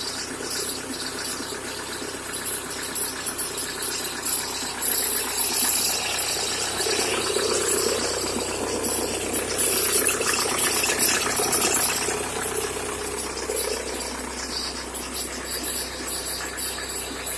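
1997 Volkswagen Golf Mk3 1.9 TDI four-cylinder turbodiesel running cold, making the bad engine sound on cold start that the owner wants diagnosed. It gets louder for several seconds in the middle, then settles.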